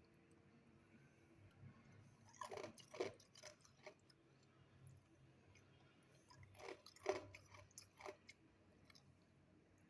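A person biting and chewing ice, loud crunches in two bouts, one a couple of seconds in and another about six and a half seconds in.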